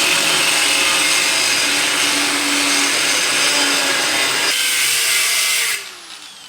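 Angle grinder cutting through a metal plate, a steady loud grinding hiss. Near the end it is switched off and the disc winds down with a falling whine.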